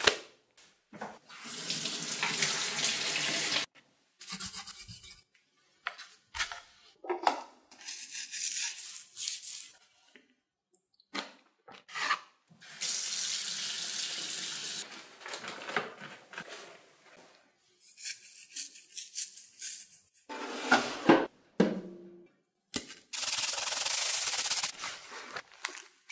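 A run of separate food-prep sounds: about halfway through, a kitchen tap runs steadily for a few seconds as a raw fish cheek is rinsed under it in a stainless-steel sink. Around it are short bouts of hands rubbing and handling the fish and packing coarse salt, with silent gaps between them.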